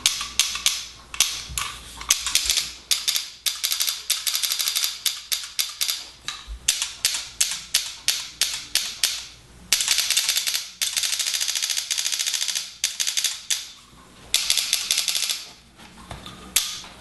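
Invert Mini electronic paintball marker being fired as its new spring-return trigger is tested. There are single sharp clicks first, then several bursts of very fast clicking, the longest lasting about three seconds.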